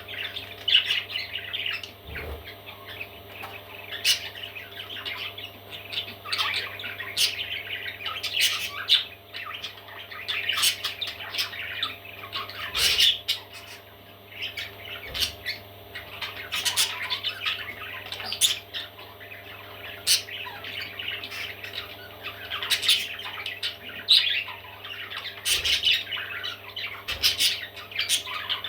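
Parrot chicks squawking and chattering without a break, with sharp, loud squawks every second or so, over a steady low hum.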